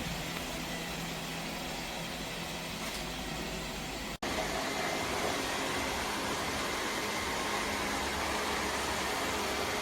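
Lefant M330 Pro robot vacuum running, a steady whirring suction-fan and brush noise with a faint hum. It cuts out for an instant about four seconds in and carries on slightly louder.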